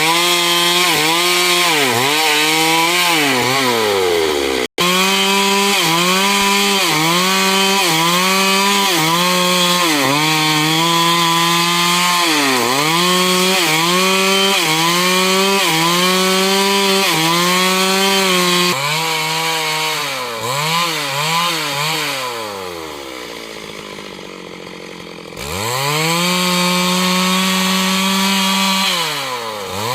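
Stihl MS 382 two-stroke chainsaw cutting wood at high revs, its engine pitch dipping and recovering again and again as the chain bites into the cut. About two-thirds of the way through it drops to a low idle for a few seconds, then revs back up.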